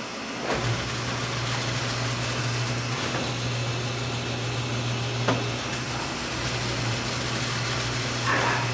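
Motor of a flatbed screen-printing press switching on about half a second in and running with a steady hum. A few knocks from the press mechanism sound over it, with a louder clatter near the end.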